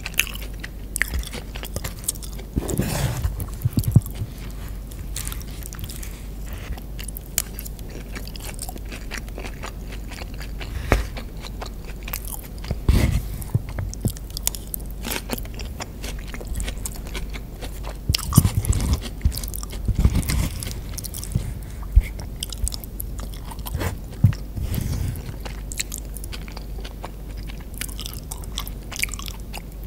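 Close-miked chewing of a Chipotle burrito bowl of rice, beans and corn eaten off a plastic fork, with many small sharp mouth clicks and a few louder, deeper chewing bouts.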